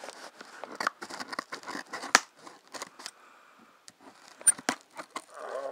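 A cardboard shipping box and its plastic wrapping handled right at the microphone as the package is worked open: irregular sharp clicks and scrapes with rustling between them, the loudest click about two seconds in and two more a little after four seconds.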